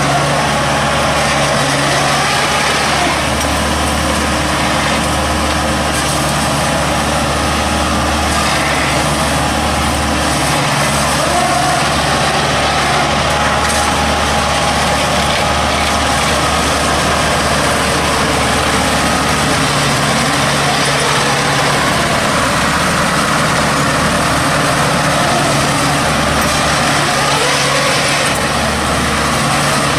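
Engine of a farmer-built straw-gathering machine, converted from an old combine harvester, running steadily as the machine travels.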